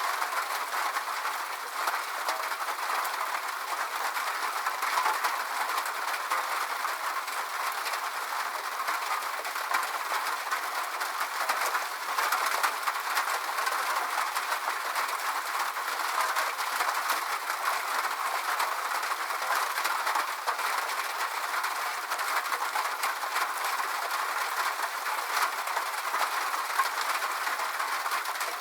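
Rain falling on a metal roof: a steady, dense patter of drops, many small ticks over an even hiss.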